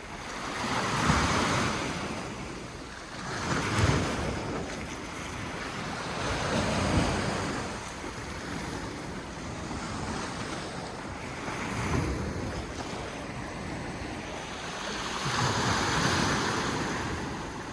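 Sea waves surging in on a rocky shore, swelling and falling away about every three to four seconds, with wind on the microphone.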